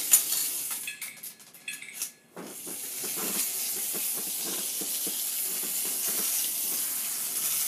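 Steady hiss with a sharp click at the start, then a string of soft knocks and rattles from plastic toy track pieces being handled.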